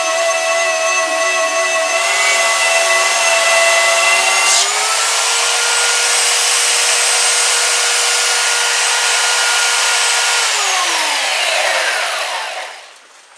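An electric woodworking power tool runs steadily with a high whine and a hiss. About four and a half seconds in its pitch steps up. About ten seconds in it is switched off, and its pitch falls as it spins down to a stop near the end.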